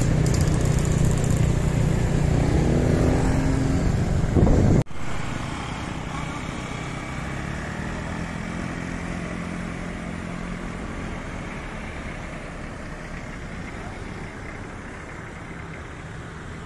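Road vehicle engines running close by, with a pitch that rises a few seconds in. The sound cuts off sharply about five seconds in and gives way to quieter, steady street traffic noise that slowly fades.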